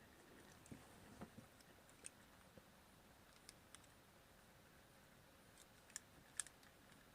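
Near silence broken by scattered faint, sharp clicks from a small die-cast model car being handled, the sharpest near the end.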